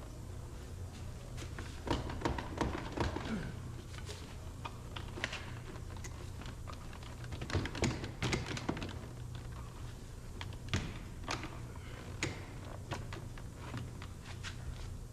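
Irregular plastic clicks and knocks from a car's front door trim panel being handled and worked loose from the door, bunched about two seconds in and again around eight seconds in, with a few single clicks after.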